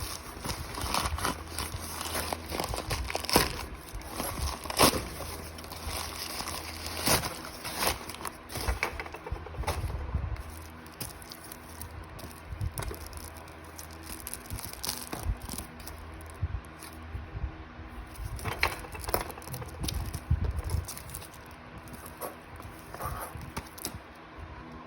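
Packaging being handled: irregular crinkling, clicks and light taps, busier in the first half and sparser later on.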